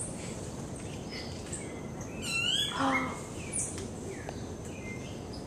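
A scatter of short, high chirps and peeping calls from wild animals, with a louder cluster of sweeping calls about two to three seconds in, over a steady faint high hiss.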